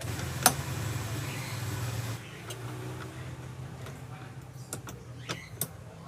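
A 19 mm socket wrench working the steering-wheel centre nut loose: a sharp metal click about half a second in and a few lighter clicks later, over a steady low hum that is louder for the first two seconds.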